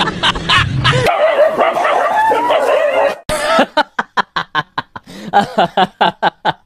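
A dog yelping and whining in wavering cries, then a fast run of short laughter-like cries, about four to five a second.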